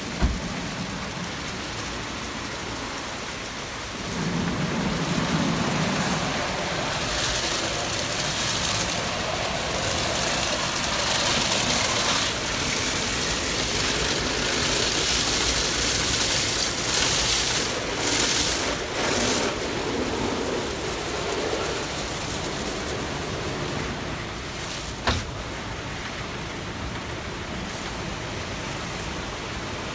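Automatic rollover car wash gantry at work, its rotating brushes scrubbing a car under spraying water: a steady rushing of water and brush noise, louder through the middle. A sharp knock comes just after the start and another about 25 seconds in.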